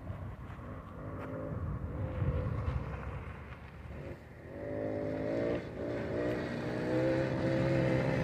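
A Suzuki LT50 mini quad's 49 cc two-stroke engine running under throttle as the quad rides toward the listener. It is faint at first and grows louder from about halfway, where its pitch steps up and then holds steady.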